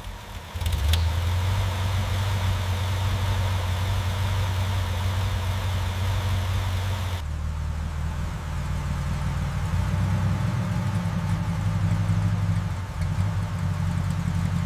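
BMW 3.0 CSL straight-six engine starting and catching a little over half a second in, then idling steadily.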